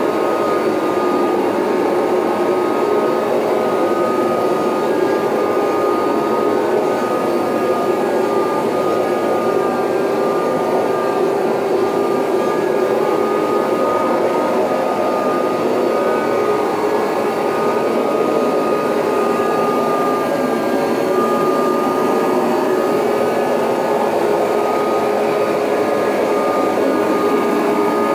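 Late-1980s Kirby Heritage 2 upright vacuum with the Rug Renovator carpet-shampoo attachment, running steadily as it works over the carpet. Its motor gives a steady high whine over a continuous rushing noise.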